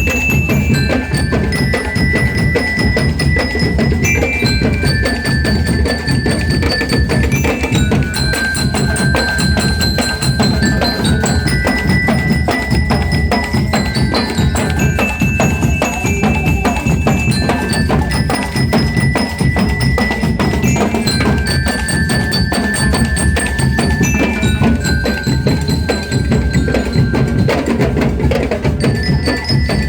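Marching band bell lyres playing a melody of ringing notes over a steady, dense beat of drums.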